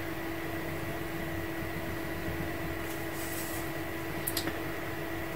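Steady room hum with a constant tone, like an air conditioner or fan running. A faint scratch of the metal tool on the leather comes about three seconds in, and two small clicks follow a little after four seconds.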